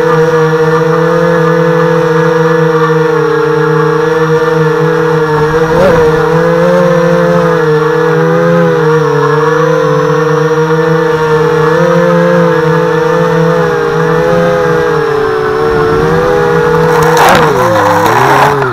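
Brushless motors and propellers of a 250-size FPV racing quadcopter whining steadily in flight, close to the onboard camera's microphone, the pitch wavering a little with throttle. Near the end comes a crackling burst as the props chop into long grass, and the motor pitch falls sharply.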